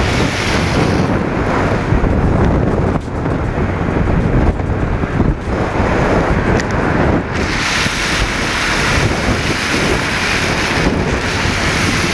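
Wind rushing over the microphone of a camera mounted outside a moving car, mixed with the hiss of the tyres throwing up spray from floodwater on the road. The hiss turns brighter and louder about seven seconds in.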